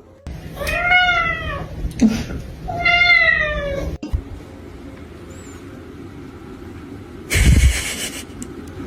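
A cat meowing twice, two long drawn-out meows that rise and fall in pitch, over a low rumble. About seven seconds in comes a short burst of noise.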